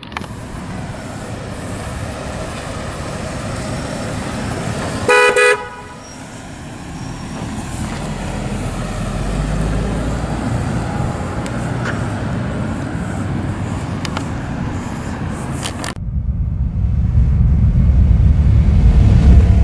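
1991 Jaguar XJS's 5.3-litre V12 running as the car pulls out and drives away, with a short double toot of its horn about five seconds in. Near the end the sound cuts abruptly to a deep, low rumble.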